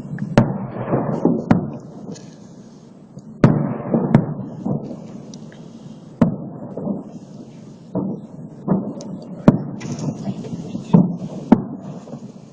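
Fireworks salute going off: about ten sharp bangs at uneven intervals, each trailing into a rolling, echoing rumble.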